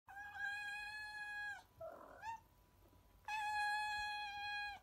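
Cat meows used as an intro sound effect: two long meows held at one unchanging pitch, each about a second and a half, with a short chirp-like mew between them.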